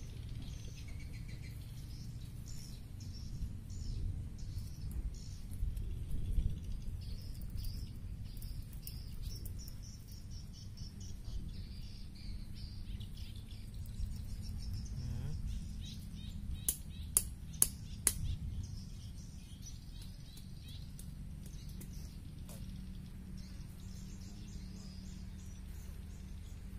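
Small birds chirping over a steady low rumble, with three sharp clicks or snaps a little past the middle.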